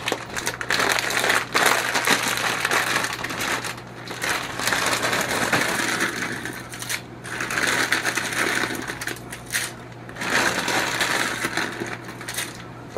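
Plastic bag of dry ribbon noodles crinkling and rustling as it is handled and shaken out over a pot, in bursts that come and go.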